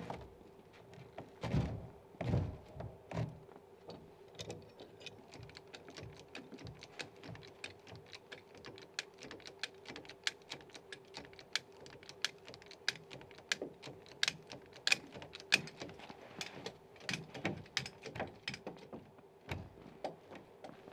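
Stones and a hand tool knocking together at a rubble-stone foundation: a few dull thumps in the first three seconds, then a long irregular run of light, sharp clicks and taps. A faint steady hum runs underneath.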